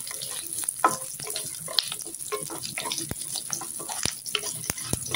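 Whole shallots and curry leaves sizzling and crackling in sesame oil in a kadai as they are sautéed. A wooden spatula stirs them, knocking sharply against the pan a few times in the second half.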